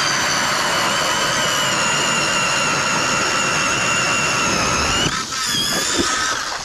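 24-volt electric ice auger drilling a hole through lake ice, its motor giving a loud, steady whine. About five seconds in the pitch dips, then the motor winds down near the end.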